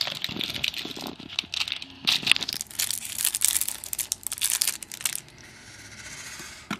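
Trading card packaging being torn and crinkled open: dense, irregular crackling and ripping for about five seconds, then a quieter steady rustle and a sharp click near the end.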